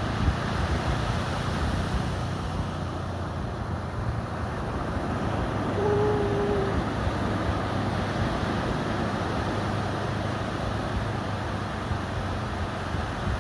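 Ocean waves surging and breaking on a beach, a steady wash of surf with wind rumbling on the microphone. A short tone sounds briefly about six seconds in.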